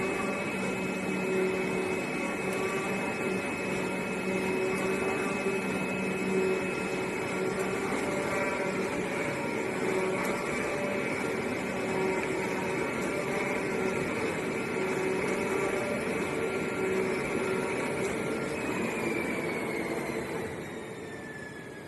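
STK 2516N CNC fabric and leather cutting machine running with a steady mechanical hum and whine. Near the end the level drops and the whine falls in pitch as it winds down.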